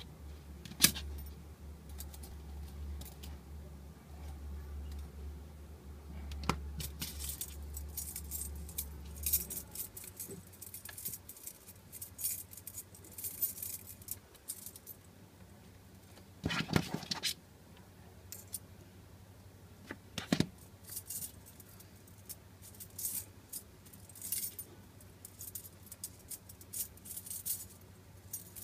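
Steel wire rings and loops of a metal ring puzzle clinking and jangling against each other and the metal plate as they are slid, turned and threaded by hand, in many small light clicks with a few louder clatters, the loudest about halfway through.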